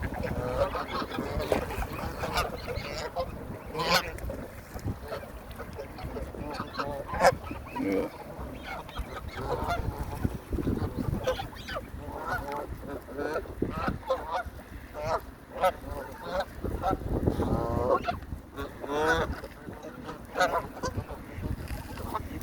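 A flock of geese honking, many short calls following and overlapping one another.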